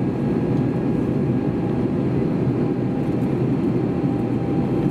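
Steady cabin noise inside an Airbus A321neo with Pratt & Whitney PW1100G geared turbofans: an even, low rush of airflow and engine noise with a faint steady hum above it.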